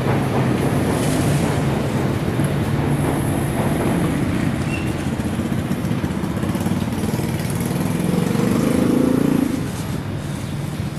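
Street traffic with motorbike engines running steadily, one swelling louder about eight seconds in and dropping away sharply near the end.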